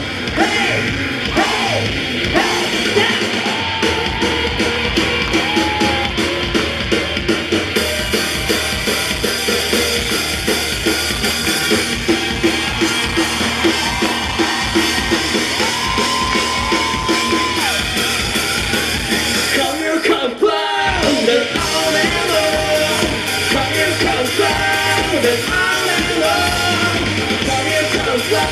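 Live rock band playing: drum kit, electric guitar and bass, with held, bending melody lines over the top. The band stops for a split second about twenty seconds in, then crashes back in.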